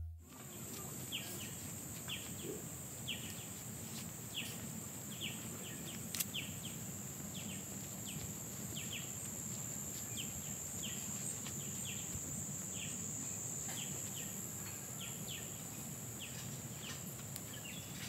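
Forest ambience: a steady high-pitched insect drone, with a short chirp repeated in quick pairs about once a second.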